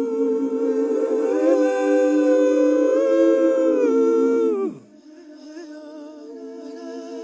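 Several voices humming and singing long held tones a cappella, as a wordless lament of mourning. About four and a half seconds in, the voices slide down in pitch and break off, and a softer hum then comes back and slowly swells.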